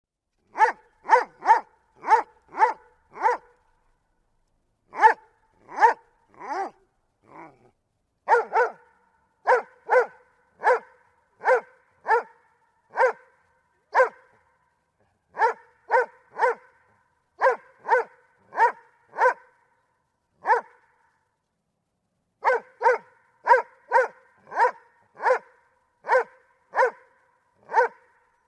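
A dog barking repeatedly, short single barks about half a second to a second apart, in runs with a couple of brief pauses.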